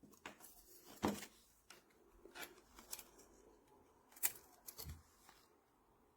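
Faint handling noises: scattered clicks and short rustles from small plastic and metal parts being moved by hand, the sharpest click about four seconds in.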